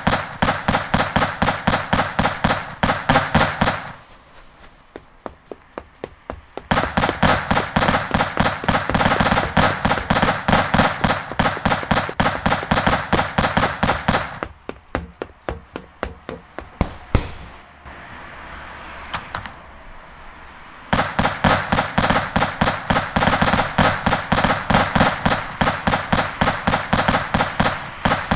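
Rapid automatic-gunfire sound effects in long bursts, several shots a second. Three dense bursts, the last starting about two-thirds of the way in, with slower scattered single shots in the gaps between them.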